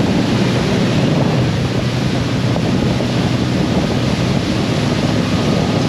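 A 31-foot Bertram's inboard engines running with a steady low drone, mixed with wind buffeting the microphone and water rushing past the hull.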